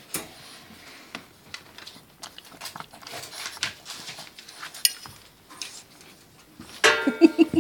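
Boston terrier pawing through the bars of a wire crate at a stainless steel food bowl: scattered light clicks, taps and rattles of metal. Near the end comes a short, louder burst of a pitched voice.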